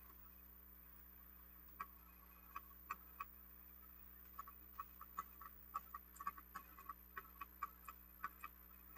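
Radio Shack Armatron toy robot arm's mechanism clicking faintly and irregularly as it is worked by its controls, a few clicks at first and then many in quick succession from about halfway through.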